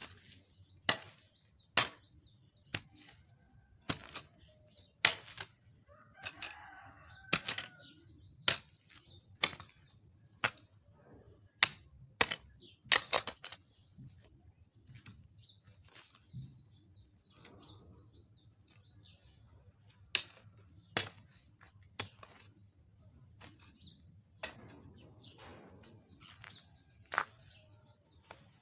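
Weeding in a crop field: a string of sharp, irregular strikes as grass and weeds are chopped and pulled from the soil, about one a second with a few pauses.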